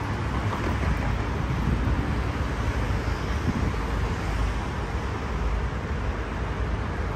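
Steady road traffic on a busy multi-lane highway: a continuous wash of tyre and engine noise with no single vehicle standing out.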